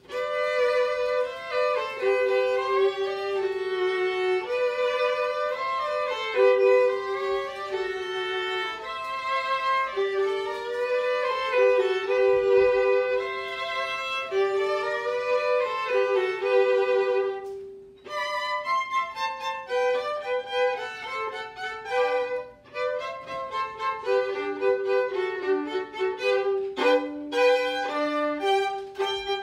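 Two violins playing a duet, one part holding lower notes under a moving upper melody. About two-thirds of the way through the music breaks off for a moment, then goes on with shorter, more detached notes.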